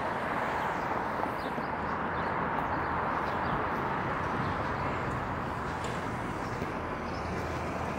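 Steady city street noise, a constant rushing hum of traffic, with faint light ticks of footsteps.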